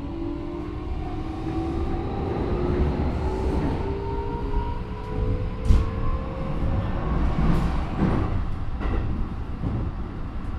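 Keikyu 1000 series electric train heard from inside the car: the Mitsubishi IGBT inverter and traction motors whine in several tones that glide slowly upward over the first seven seconds, over a steady rumble of wheels on rail with a few sharp knocks, one loud about halfway. The motor sound on this car is unusually loud, much like the early GTO-type inverters.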